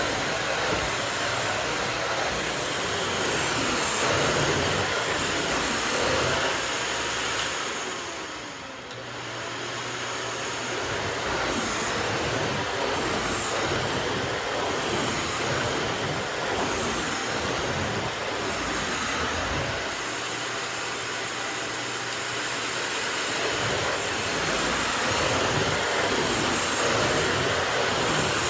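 Miele S194 Quick Step stick vacuum running on carpet, a steady motor whine and rush of suction air through its plain suction floor head with no power brush. The level dips briefly about eight seconds in, then comes back up.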